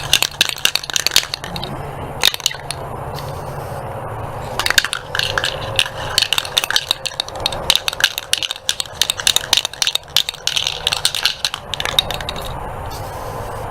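Aerosol spray paint can being shaken hard, its mixing ball rattling in rapid metallic clicks; the rattling runs in two bouts, a short one at the start and a longer one from about five seconds in to near the end, with a few single clicks between.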